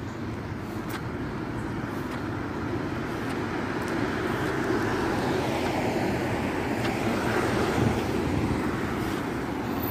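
A car driving past close by on a street, its engine and tyre noise slowly growing louder as it comes near and passes, over steady traffic noise.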